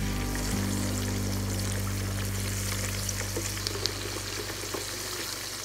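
Raw tilapia steaks deep-frying in hot oil: a steady sizzle with a few sharp pops, fading near the end.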